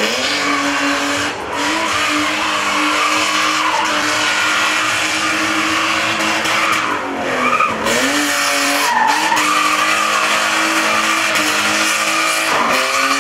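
Red BMW 3 Series (E36) sedan drifting in tight circles: engine held at high revs and tyres squealing on the asphalt. The engine pitch briefly drops and climbs again a little past halfway.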